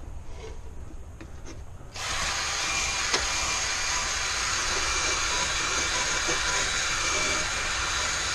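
Cordless drill spinning a wire brush against the drill press's rusty steel spindle shaft to strip the rust: a steady scrubbing whir that starts suddenly about two seconds in, after a few light handling clicks.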